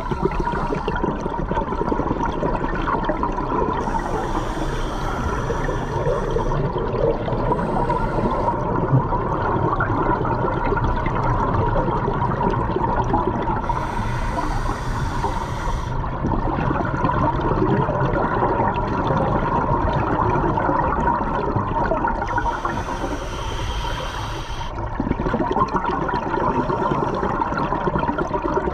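Underwater sound of a scuba diver breathing through a regulator: a steady churning rush of bubbles, broken three times by a brighter hiss lasting two or three seconds.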